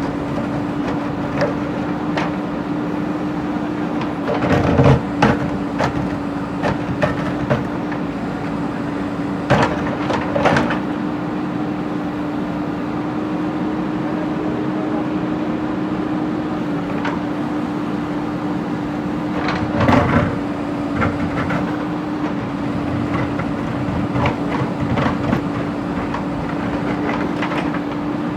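JCB backhoe loader's diesel engine running steadily under load, with a few short knocks and scrapes of the bucket against broken brick and stone, the loudest a little after four seconds in, around ten seconds and around twenty seconds.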